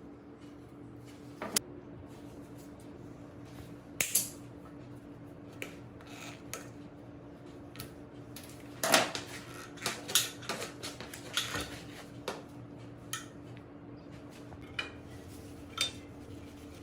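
Metal parts and tools clinking and clicking as they are handled, a dozen or so irregular knocks with a cluster about halfway through, over a faint steady hum.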